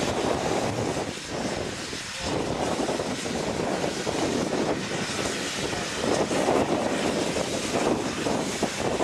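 Steam locomotive working past at close range, its exhaust and escaping steam making a steady, dense rushing noise.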